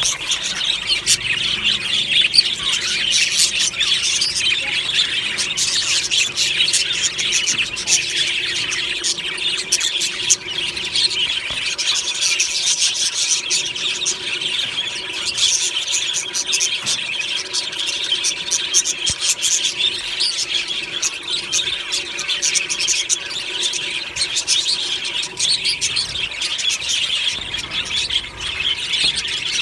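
A flock of budgerigars chattering, chirping and squealing together without a break, many birds calling over one another in a dense, high-pitched warble.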